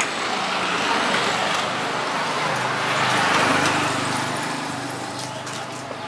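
A road vehicle passing by, its engine and tyre noise swelling to a peak about three seconds in and then fading away.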